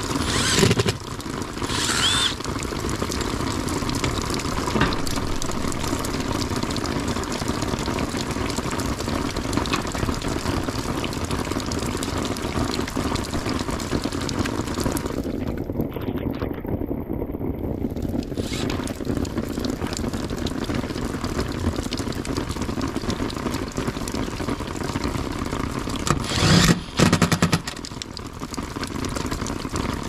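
Steady rain hissing and pattering on and around an outdoor AC condensing unit. A cordless driver runs in a few short bursts, loudest near the end.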